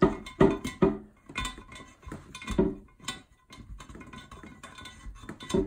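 Hard knocks and rattles of a cable being pushed and jiggled through the porcelain trapway of a toilet to free a toothbrush stuck inside. The knocks come in quick clusters, then give way to lighter ticking, with one more knock near the end.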